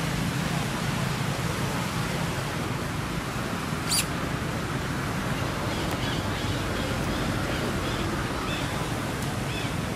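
Steady outdoor rushing noise, with one sharp click about four seconds in and a few faint, short, high chirps in the second half.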